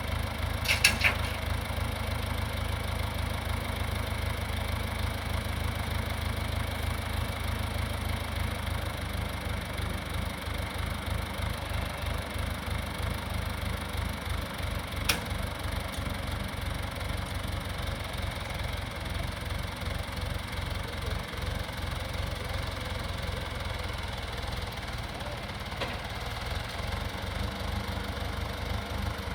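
An engine running steadily with a low rumble, with a few sharp knocks: a quick cluster about a second in and a single one midway.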